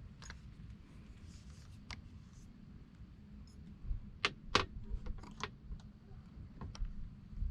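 A few light clicks and knocks, loudest in a cluster about four to five seconds in, over a steady low rumble of wind on the microphone.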